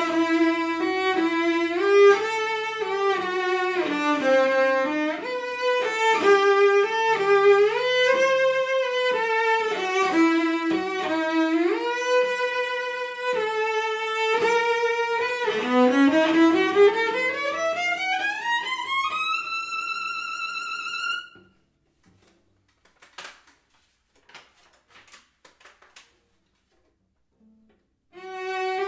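Solo cello played with the bow: a quick passage of changing notes, then a steady climb in pitch to a high held note that stops about two-thirds of the way through. A few seconds of near silence with faint small ticks follow, and the bowing starts again near the end.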